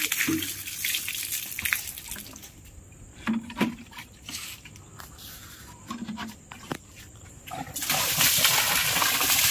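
Water poured from a plastic pot splashing onto a concrete floor, easing off after about two seconds. A few sharp knocks follow in a quieter stretch, then a second, louder dousing splashes down near the end.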